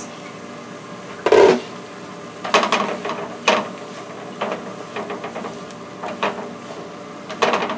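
A glass pot lid set down with a knock about a second in, then a utensil scraping and clinking in a steel skillet as carrots, onions and peppers are stirred, in irregular strokes.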